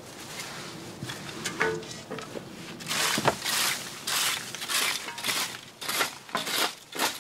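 A rake scraping dry leaves and loose debris across stony ground, a rustling scrape with each stroke. The strokes start about three seconds in, roughly one or two a second.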